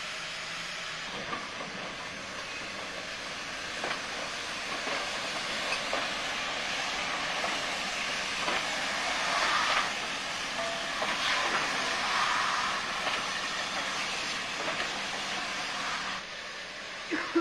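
SGS-class 0-6-0 steam goods locomotives working, with a steady hiss of steam and scattered clanks. The sound swells in the middle and drops abruptly near the end.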